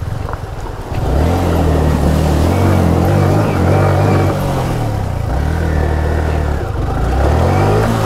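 Yamaha motorcycle engine pulling at low revs while crossing a shallow, rocky river. The engine comes in strongly about a second in, and its pitch dips and rises a few times, climbing near the end, over a steady rushing hiss of water.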